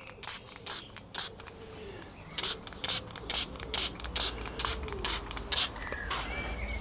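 Hand pump spray bottle squirting water onto a balsa sheet in a quick run of short hissing sprays, about two a second, dampening the outside of the wood so its fibres swell and it bends round a former.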